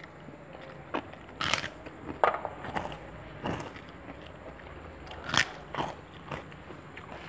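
A person eating close to the microphone: chewing and biting with about eight irregular, sharp crunches, the loudest about a second and a half in, a little after two seconds, and past five seconds.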